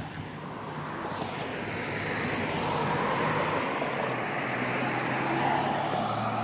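Road traffic: a car's tyre noise and low engine hum growing louder over the first few seconds, then holding steady.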